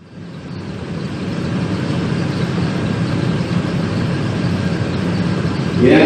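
A steady low hum and hiss fades in over the first second and holds. Near the end a man's chanting voice begins.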